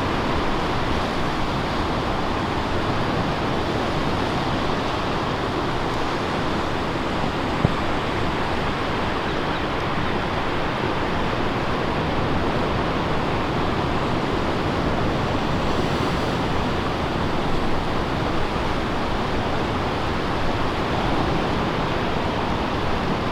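Surf breaking at a river-mouth bar: a steady, even wash of waves with no letup, and a single faint tick about eight seconds in.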